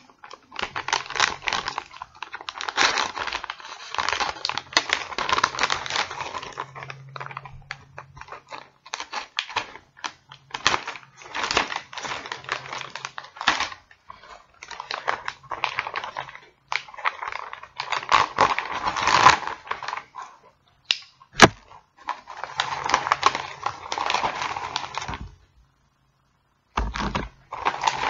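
A mailing package being handled and torn open by hand: irregular rustling, crinkling and tearing, with one sharp click about two-thirds of the way through.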